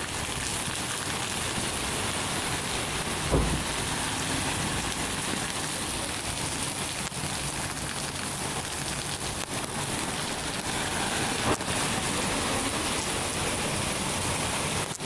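Torrential rain pouring steadily onto a street, parked cars and trees, a dense even hiss. A brief low thump sounds about three seconds in.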